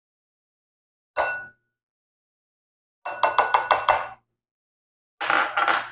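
Glass bowls clinking as a wooden spoon knocks mayonnaise out of a small glass prep bowl into a glass mixing bowl: one ringing clink about a second in, a quick run of about six taps around three seconds in, and a few more taps near the end.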